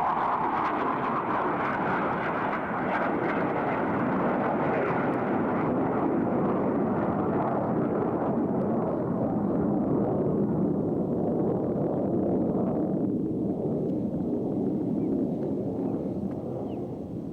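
F/A-18 Hornet jet engines heard from across a river: a long, steady rush of jet noise whose higher part fades after about thirteen seconds as the jets move away.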